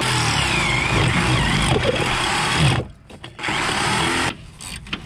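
Electric drill boring a hole through the RV's metal chassis rail, the motor running under load with its pitch wandering. It stops about three seconds in, runs again for about a second, then stops.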